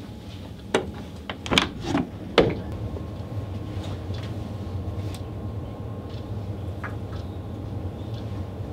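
A door being opened: a handful of knocks and clatters in the first two and a half seconds, then a steady low hum with a few faint ticks.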